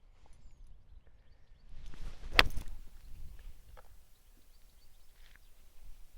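A golf swing: a short rising whoosh of the club ending in one sharp, loud click as the clubface strikes the ball, about two and a half seconds in.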